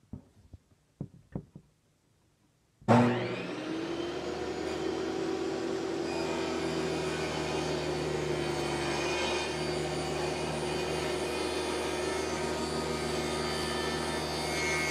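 A few light knocks of the panel being handled, then about three seconds in a table saw motor starts with a sudden jolt and runs with a steady whine. Its blade is raised up through the laminated panel from below to start a plunge cut.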